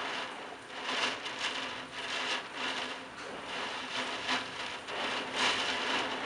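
Torrential thunderstorm rain driven by strong gusting wind, a dense hiss that swells and eases in irregular surges.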